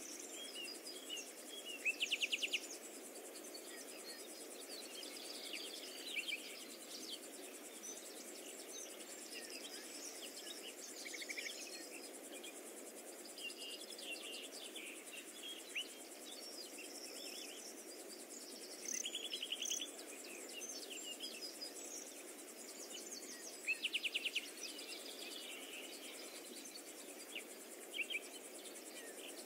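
Faint outdoor ambience: birds and insects chirping, with short rapid high trills every several seconds, over a steady low hiss.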